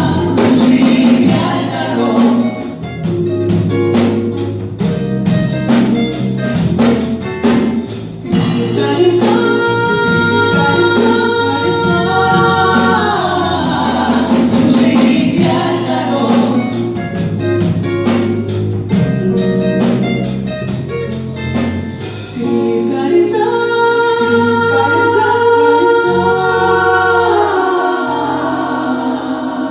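Three women singing a pop song in close harmony with a live band of bass guitar, drums and electric guitars. The drums drop out about three-quarters of the way through, leaving the voices and band to hold the closing chords.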